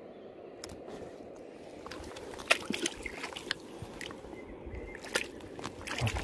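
River water running steadily, with irregular splashes and sloshes from about two and a half seconds in.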